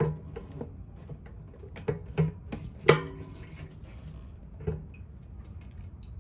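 Hollow knocks and clunks of a motorcycle's steel fuel tank being lifted and shifted on its frame: a handful of sudden hits, each with a short ring, the loudest about three seconds in.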